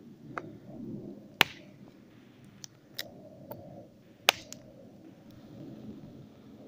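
Waldläufer XXL bushcraft knife chopping into a spruce stick laid on a tree stump. There are two loud, sharp chops about three seconds apart, with several lighter knocks and taps of the blade on the wood between them.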